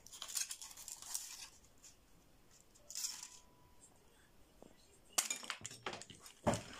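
Foil wrapper crinkling as it is peeled off a chocolate ball, then a few sharp clicks and a louder clink near the end as pieces of chocolate shell are set down on a plate.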